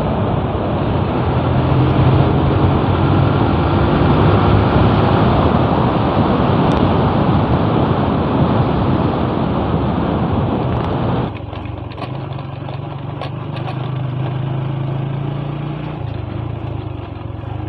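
Motorcycle engine running as the bike is ridden, under heavy wind rush on the helmet-mounted microphone. About eleven seconds in, the wind noise drops away suddenly, leaving the engine's steady low note with a few light clicks and rattles.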